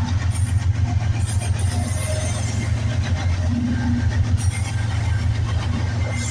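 Freight train rolling past: the wheels of its cars clatter and click on the rails over a steady low rumble.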